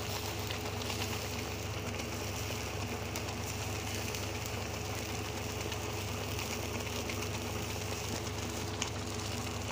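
A steady machine-like hum with a few held tones, over faint popping and spattering of thick tomato masala bubbling as it fries in a kadhai. The tomato's water is cooking off before the oil separates.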